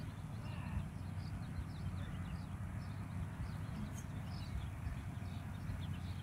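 Outdoor ambience by a pond: a steady low rumble with many faint, short, high chirps scattered through it.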